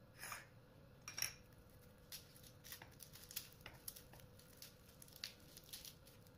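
Garlic cloves being peeled by hand and with a knife: faint papery crackles of the dry skins and small sharp clicks, scattered at about one or two a second.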